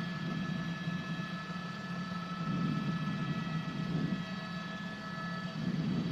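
Helicopter cabin noise: a steady drone of engine and rotor with a high whine over a choppy low beat.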